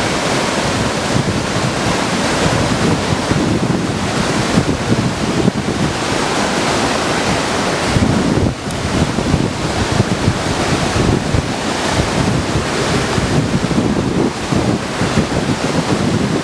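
Rainbow Falls, a large waterfall, heard from its base: a loud, steady rush of falling water, with wind buffeting the microphone.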